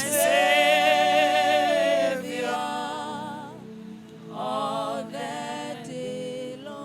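Slow hymn singing with vibrato, one long held note near the start and a shorter sung phrase about two-thirds of the way through, over a steady sustained accompaniment.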